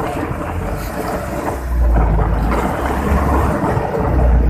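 Wind rumbling on the microphone aboard an outrigger fishing boat at sea, over the wash of the sea and a steady low engine hum. The rumble swells louder about two seconds in and again near the end.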